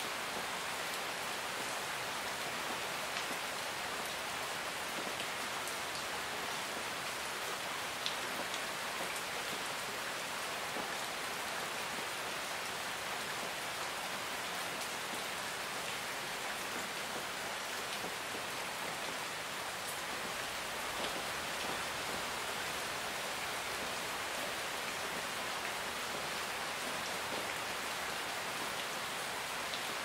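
Medium rain falling steadily: an even hiss of many drops, with the odd single drop ticking out, one a little louder about eight seconds in.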